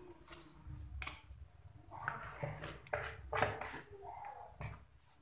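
Plastic spoon scraping and patting thick ground-peanut pecel paste flat in a plastic tub: a series of short, uneven scrapes and taps.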